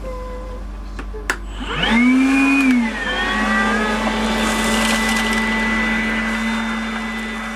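Vacuum cleaner switched on about two seconds in: the motor whine rises quickly in pitch, then runs steadily with a rushing hiss of air.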